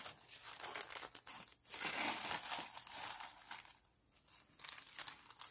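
Clear plastic packaging and tissue paper crinkling and rustling as handmade paper crafts are handled, in irregular bursts with a short pause a little before the end.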